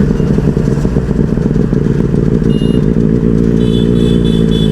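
Benelli 600i's inline-four engine running steadily, its exhaust loud, louder than the stock silencer.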